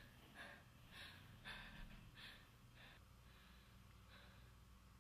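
A woman's faint, heavy breathing in quick gasps, about five breaths in the first three seconds, then quieter, over a low steady room hum.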